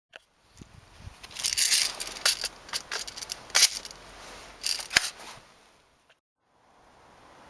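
Handling noises from an airsoft MP5A5 replica: a run of clicks, rattles and scrapes, with two sharp clicks about three and a half and five seconds in. The noises stop about six seconds in, and a faint steady hiss rises after that.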